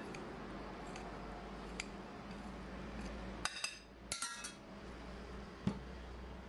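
Metal utensil clinking against a glass mixing bowl a few times, with short ringing chinks around the middle, while cooked green lentils and pearl couscous are stirred. A duller knock comes near the end.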